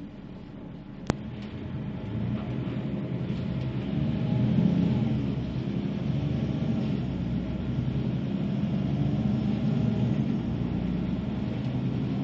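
Bus running with a low engine rumble that grows louder over the first few seconds as it gets under way, then holds steady. A sharp click sounds about a second in.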